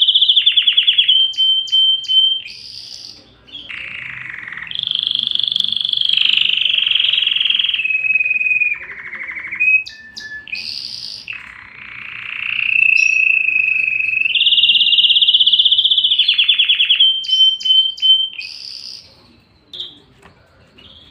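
Domestic canary singing a long, continuous rolling song: fast trills of rapidly repeated notes and held phrases, changing every second or two, fading out near the end.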